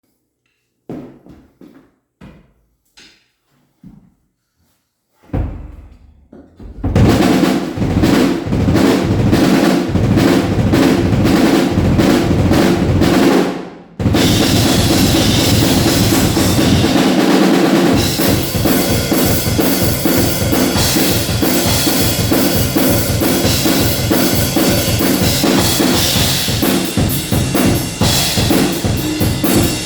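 Drum kit being played: a few scattered hits at first, then loud, fast, continuous drumming from about seven seconds in that breaks off briefly about halfway and starts again.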